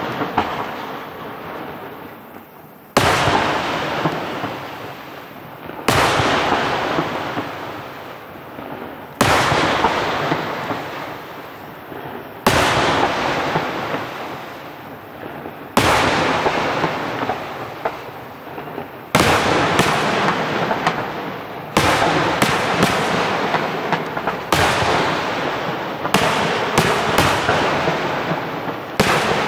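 Aerial firework shells bursting in a display: a sharp bang about every three seconds, each followed by a long fading tail. In the last several seconds the bangs come faster, several close together.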